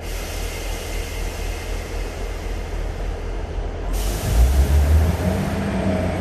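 Northern diesel multiple unit's underfloor diesel engine running with a low drone. About four seconds in, a sudden hiss of air starts, and the engine note then grows louder as the unit powers up to pull away.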